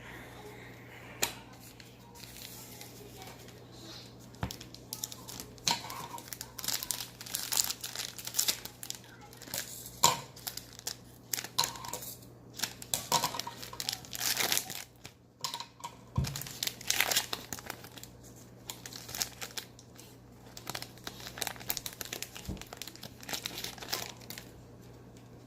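Foil trading-card pack wrapper being torn open and crinkled, a run of quick, sharp rustling bursts that is busiest in the middle.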